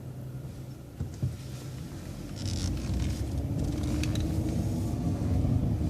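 City bus engine idling, then getting louder with a rising tone from about two seconds in as the bus pulls away. A short knock about a second in.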